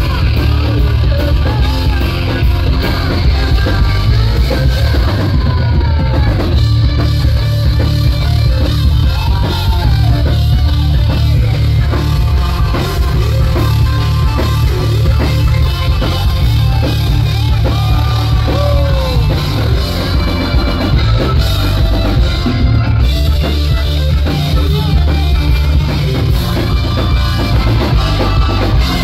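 Hard rock band playing live and loud: distorted electric guitars over a drum kit, with the band's dense sound steady throughout.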